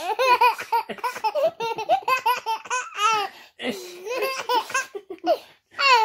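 Baby laughing in quick repeated bursts of high-pitched giggles, with a short break about three and a half seconds in.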